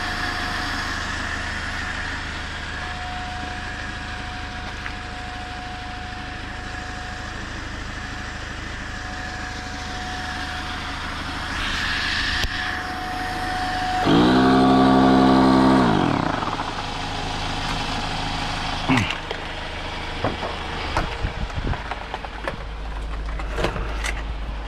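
12-volt electric SUP pump inflating an inflatable paddleboard, running with a steady whine. About 14 seconds in it grows louder for two seconds, then its pitch falls away and it stops, cutting out automatically at its set pressure. A few clicks and knocks follow as it is handled.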